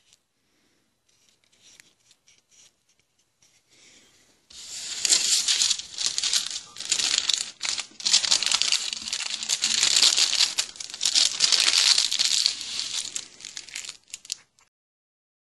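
Dry crinkling and tearing rustle of a thin sheet being handled and torn by hand. It starts about four and a half seconds in, runs with many small crackles, and stops shortly before the end.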